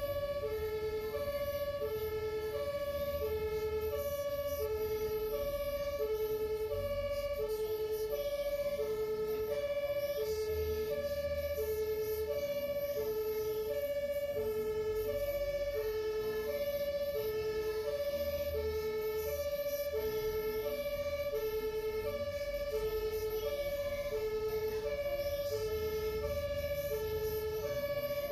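German two-tone emergency siren (Martinshorn) on an ambulance, alternating steadily between a low and a high note, about one pair every second and a half, heard from inside the vehicle's cab. The ambulance's engine and road noise rumble underneath.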